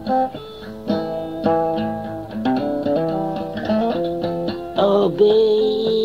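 Guitar playing an instrumental passage of a home-recorded ballad, plucked notes and strummed chords changing every second or so.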